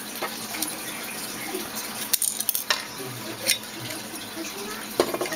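Plastic lens and housing parts of an Axis 216FD security camera being handled during teardown: scattered light clicks and rattles, with a sharper knock near the end.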